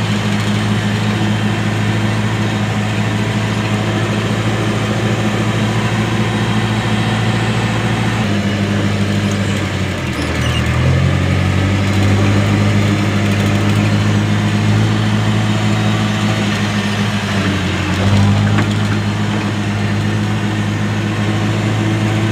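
Tractor-loader-backhoe's diesel engine running as the machine drives, heard from inside its cab. The engine note drops about eight seconds in, dips lower around ten seconds, then comes back up, and shifts again near eighteen seconds.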